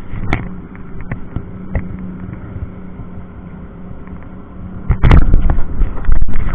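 Boat engine running with a steady low hum, under scattered knocks and clicks. About five seconds in come a few loud, heavy thumps and bumps lasting about two seconds.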